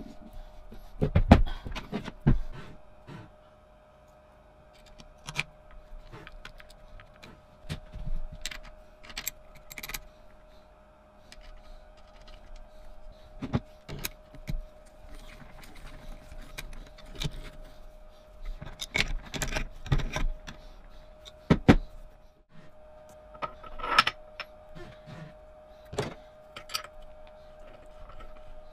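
Irregular metal clinks, knocks and taps as parts of a restored Astra pillar drill's cast-iron head are handled and fitted by hand, with an adjustable spanner worked on the spindle nut. The loudest knocks come about a second in and again around twenty seconds in, over a faint steady hum.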